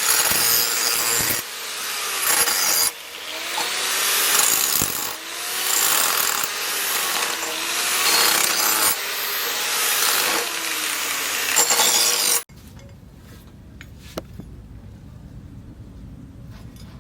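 Repeated rasping strokes of a tool cutting or abrading material, about one every one and a half to two seconds, each rising and falling in pitch. The strokes stop abruptly about twelve seconds in, leaving a low hum with a few faint clicks.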